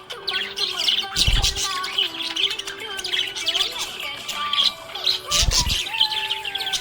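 Budgerigar chirping in fast, busy runs of short high chirps, over background music with a deep bass thud about a second in and another near the end.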